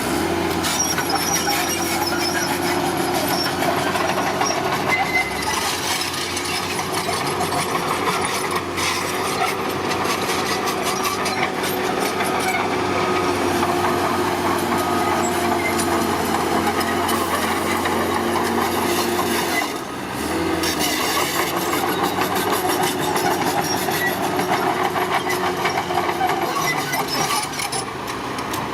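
Bulldozer at work: its diesel engine runs steadily while the crawler tracks clatter continuously, with a brief dip in level about twenty seconds in.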